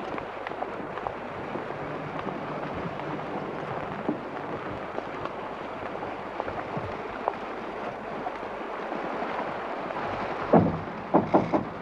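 Steady heavy rain falling. Near the end come a few sharp knocks: one loud one, then three quicker ones.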